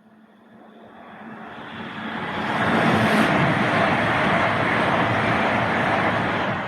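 A train approaching and passing close by. A faint rumble builds over about three seconds into a loud, steady rush of wheels and running gear on the track.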